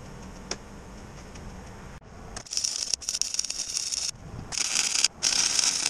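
MIG welding arc on steel, crackling in three bursts with short pauses between them: the first starts about two and a half seconds in and lasts under two seconds, the next two are shorter.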